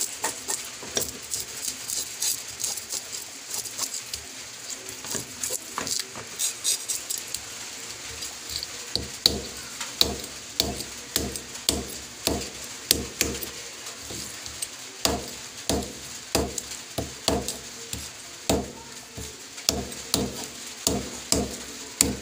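A small knife scraping the scales off a minstrel sweetlips fish on a wooden board, in quick repeated scraping strokes. The strokes are fainter at first and come louder and more regularly, about twice a second, from about halfway through.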